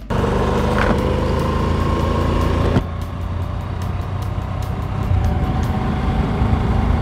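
Motorcycle running steadily at road speed, its engine hum nearly buried under wind rush on the bike-mounted camera's microphone, with one short tap about three seconds in.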